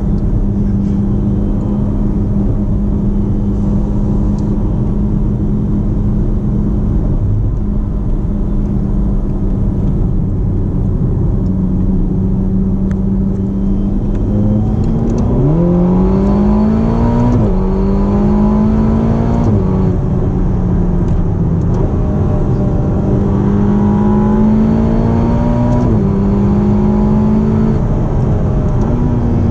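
Ferrari GTC4Lusso T's 3.9-litre twin-turbo V8, heard from inside the cabin. It cruises at a steady note over road and tyre noise. About halfway through the note jumps and climbs under hard acceleration, dropping back at each of several quick upshifts.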